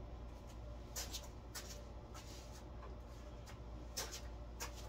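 Faint scattered clicks and light knocks of a painted wooden trophy being picked up and handled, over a low steady hum.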